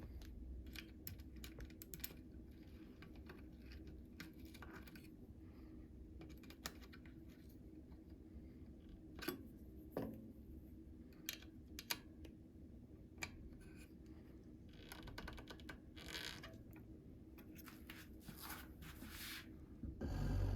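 Scattered light clicks, taps and scrapes of hands and small tools working on a bicycle rim brake, with a louder thump near the end.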